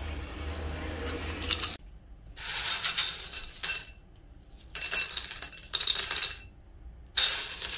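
Crisp puffed chips crunching as they are eaten. Then dry, uncooked tube-shaped snack pellets rattle and clink as handfuls are scooped and let fall back into a bowl, in three separate bursts.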